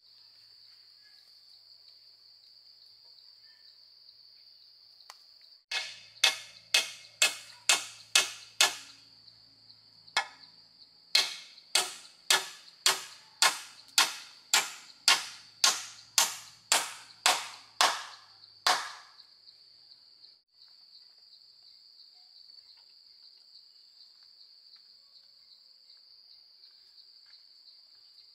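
Steady high-pitched drone of insects, broken from about six seconds in by two runs of sharp, loud blows of a tool: seven quick strikes, a short pause, then about sixteen more at roughly two a second.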